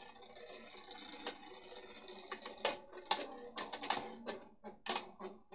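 Beyblade Burst tops, Garuda among them, spinning in a plastic stadium: a steady whirring, then a quick run of sharp clacks from about two seconds in as the tops strike each other and the stadium walls.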